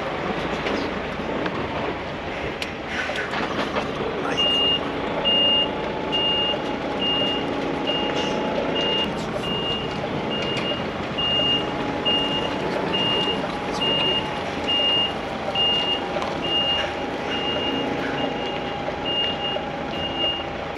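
Truck reversing alarm beeping steadily, a high single tone a little faster than once a second, starting about four seconds in. Under it a truck's diesel engine runs at low speed.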